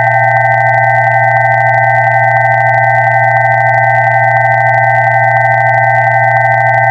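Electronically generated pure tones sounding steadily together: a low tone with several higher tones above it, all held without change.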